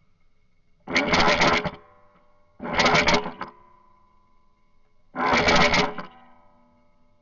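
Three short bursts of rapid fire from an airsoft gun, each lasting just under a second, with a faint ringing tone trailing after each burst.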